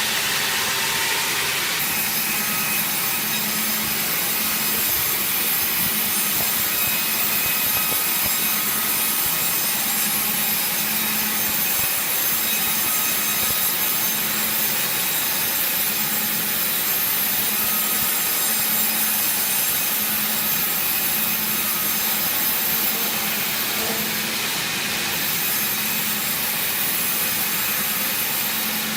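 Sawmill saw cutting through wood, a steady, dense, high-pitched noise that grows stronger about two seconds in and then holds.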